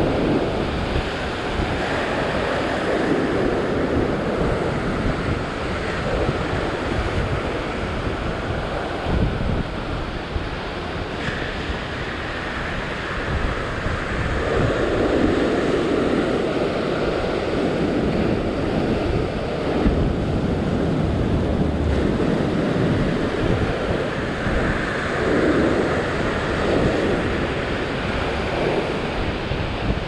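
Ocean surf breaking and washing over sandstone rock ledges in a steady rushing roar. It swells louder as bigger waves break, around the middle and again near the end. Wind buffets the microphone throughout.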